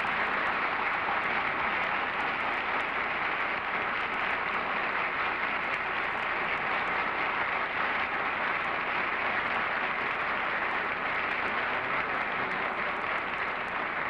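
Studio audience applauding steadily, easing off slightly near the end, heard through the narrow, dull sound of an old television broadcast recording.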